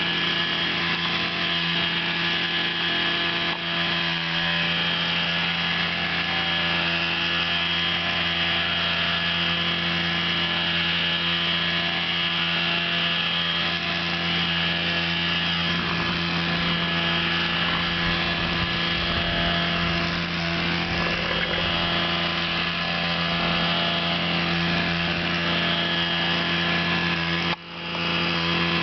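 A steady machine hum holding one constant pitch, like a small motor running, with no change in speed. It cuts out briefly twice near the end.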